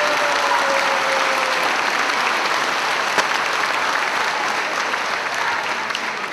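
Theatre audience applauding steadily for a ballet curtain call, a dense continuous patter of many hands clapping.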